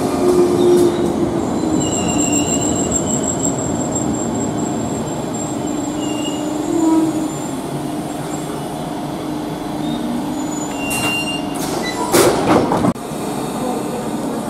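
Cercanías commuter train running through the station with steady rail noise and a high, thin wheel squeal. About twelve seconds in, a loud burst of noise cuts off suddenly.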